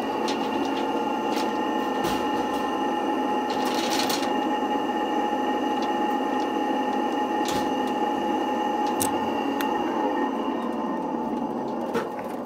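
Elec-Trak tractor's 48-volt electric motor turning the hydraulic pump, a steady whine with a hum, pressurizing the fluid while the loader lifts a 300-pound generator. A few sharp clicks and knocks are scattered through it, and it starts to fade near the end.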